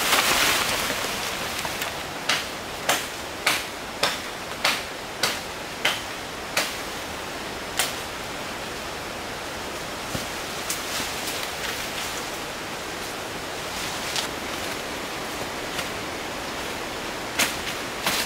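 A series of sharp knocks, roughly one every half to three-quarters of a second for a few seconds, then a few scattered ones, over a steady hiss.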